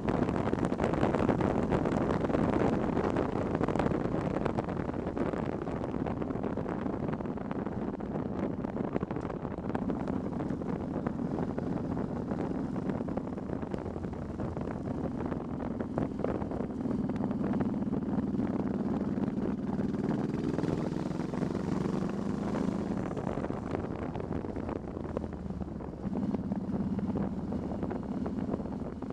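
A Honda Shadow Spirit 1100's V-twin engine running while the motorcycle is ridden, mixed with wind rushing over the microphone. The level is a little higher in the first few seconds, and the engine note shifts slightly with throttle.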